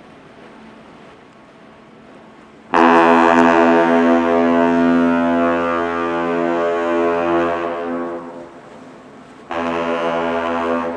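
Deep horn blowing one long blast of about five seconds, then a short blast near the end, in the pattern of a captain's salute of one long and two short blasts.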